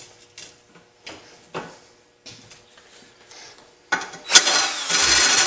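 A steel mower blade handled with light metallic clinks and knocks, then about four seconds in a loud, harsh grinding rasp starts as the blade is sharpened on the blade sharpener.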